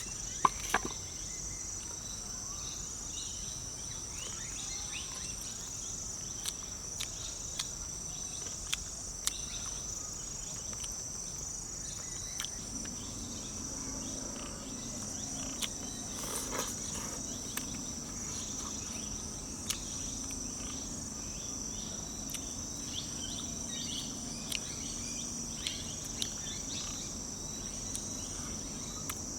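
Insects chirring continuously in a steady high-pitched drone, with scattered small clicks and taps throughout and a faint low hum joining about halfway through.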